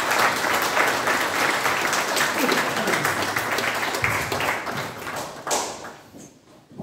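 Audience applauding, a dense patter of many hands clapping that dies away over the last second or two.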